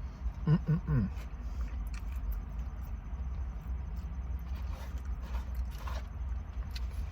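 Chewing and mouth sounds of someone eating fried chicken tenders, with a short pitched vocal sound about half a second in, over a steady low hum.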